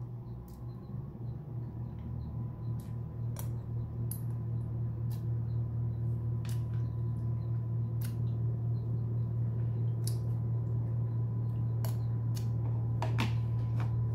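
A steady low mechanical hum that slowly grows louder, with scattered light clicks from eating honey off a metal spoon.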